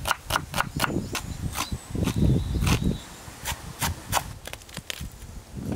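Kitchen knife chopping onion and then coriander leaves on a wooden cutting board: a steady run of quick, sharp strikes, about four a second, with a duller patch of handling noise in the middle.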